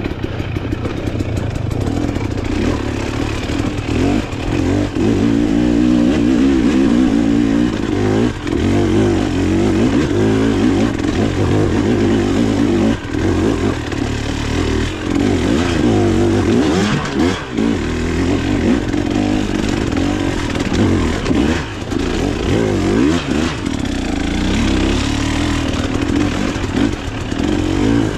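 Off-road dirt bike engine being ridden hard, its revs rising and falling constantly as the throttle is worked through the trail, with a few brief knocks from the bike over rough ground.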